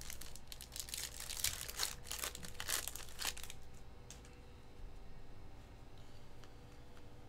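Trading-card pack wrapper crinkling and tearing as a pack is opened by hand. There is a quick run of crackles for the first three seconds or so, then only a few faint ticks.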